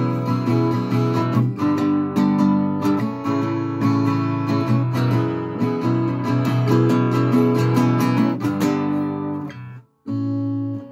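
Acoustic guitar playing the closing instrumental passage of the song with a steady low bass under the picked notes. Near the end the playing stops briefly, then a final chord is struck and rings out.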